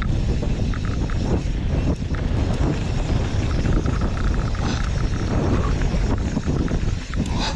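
Mountain bike riding fast down a dirt trail, heard from a camera on the rider: a heavy, steady rumble of wind on the microphone and tyres on dirt, with scattered clicks and clatters from the bike over the bumps.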